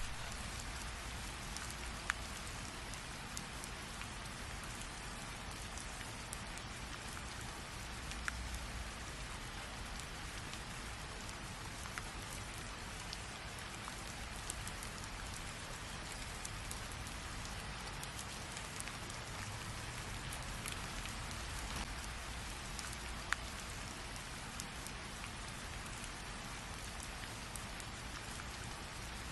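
Steady rain falling on a surface, a continuous hiss with scattered sharper drop taps and a low rumble underneath.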